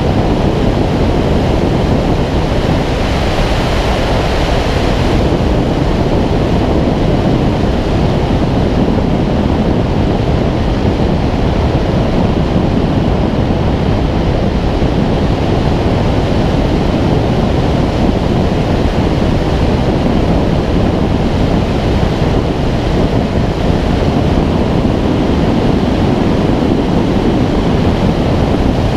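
Airflow rushing over a camera mounted on the wing of a Schweizer 2-33 glider in flight: loud, steady wind noise on the microphone with no engine, since the glider is unpowered. A higher hiss eases off about five seconds in.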